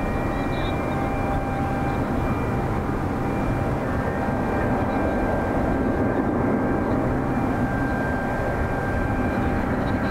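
Airbus A350 jet engines running: a steady rumble with a high whine held at a few fixed pitches.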